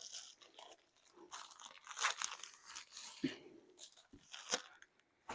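Paper packaging rustling and crinkling, with a few sharp clicks and snaps, as the folded origami envelope of a diamond painting kit is handled and opened.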